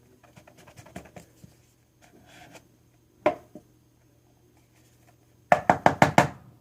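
Hands handling small objects on a table: light clicks and rustles, a single sharp knock about three seconds in, then a quick run of five loud knocks near the end.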